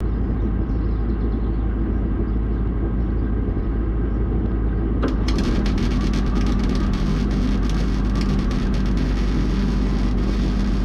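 Handheld power grinder running, then grinding steel from about five seconds in, cleaning cutting slag off the winch-mount holes of a steel bumper.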